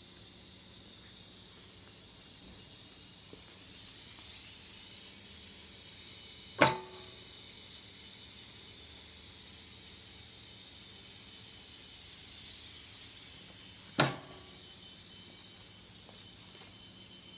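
Large-format pneumatic heat press at work: a steady hiss of air, broken twice, about seven seconds apart, by a sharp metallic clunk that rings briefly.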